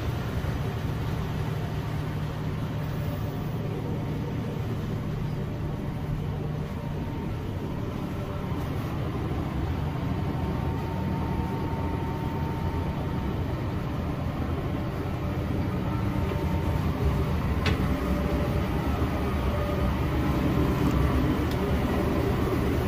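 Running marine diesel machinery in a ship's engine room, dominated by a MaK medium-speed diesel engine: a steady, dense low drone, growing slightly louder near the end.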